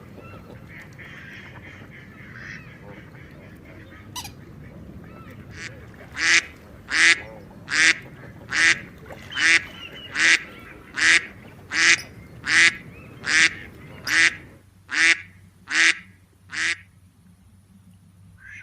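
Waterfowl calling: a few soft calls, then a loud, regular series of about fourteen short calls, a little over one a second, which stops near the end.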